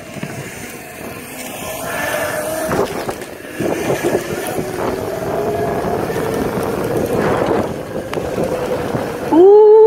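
Rumble of small hard wheels rolling over brick paving, with wind buffeting the microphone, as an electric personal ride-on moves at speed, and a faint steady whine under it. A voice exclaims "Ooh" just before the end.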